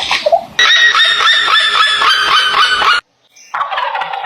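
Turkey gobbling: a loud, rapid, rattling call of about five pulses a second that lasts about two and a half seconds and then cuts off. A different, lower pulsed animal call starts near the end.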